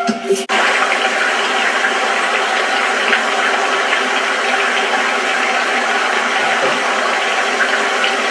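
Steady rushing of a rocky stream running over small rapids, heard through a TV speaker. It cuts in abruptly about half a second in, replacing electronic music.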